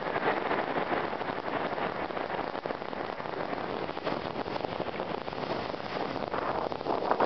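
Strong onshore wind and breaking surf: a steady, dense hiss that swells slightly near the end.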